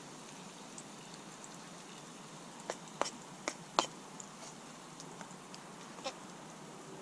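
A metal utensil clinking against a small frying pan: four sharp knocks in quick succession, then one more near the end, over a steady background hiss.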